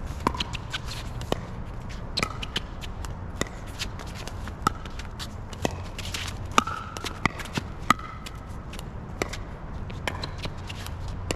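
Pickleball rally: sharp pops of paddles striking the plastic ball, roughly once a second, some with a brief ringing tone, mixed with ball bounces. Wind rumbles low on the microphone underneath.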